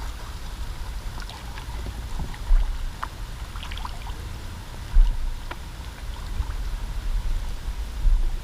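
Small paddle boat on a river: water trickling and dripping around the hull, over a low wind rumble on the microphone, with two dull thumps about two and a half and five seconds in.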